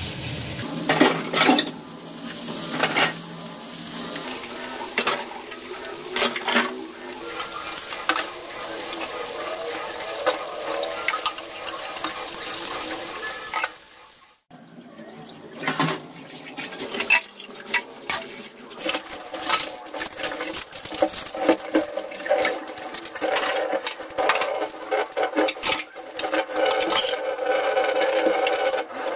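Utensils and pots clattering and knocking while being scrubbed and rinsed at a sink, with water running, over the sizzle of fish frying in oil. The sound breaks off briefly about halfway.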